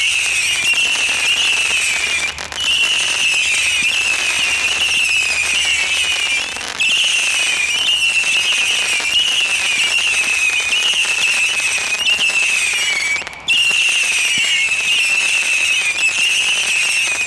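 Devco British Celebration firework firing a rapid, nearly unbroken run of whistling shots, each whistle sliding slightly down in pitch and overlapping the next. The whistling stops briefly a few times before starting again.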